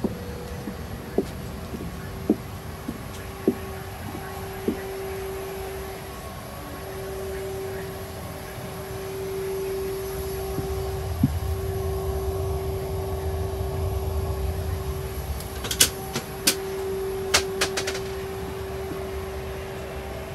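Steady hum of a parked airliner's cabin air and power systems over a low rumble that swells midway. A few sharp clicks sound in the first few seconds and again in a quick cluster near the end.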